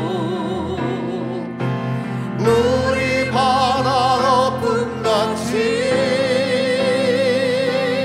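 A man and a woman singing a worship song in long held notes with vibrato, accompanied by a grand piano. The sung note fades about a second and a half in, the piano plays alone for a moment, and the voices come back in about two and a half seconds in.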